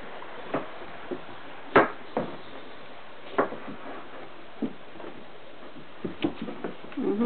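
Irregular knocks and taps of kitchen utensils: a wooden spoon stirring cake batter in a glass mixing bowl and a knife cutting apples on a wooden chopping board. The loudest knock comes about two seconds in, and a quick cluster comes near the end.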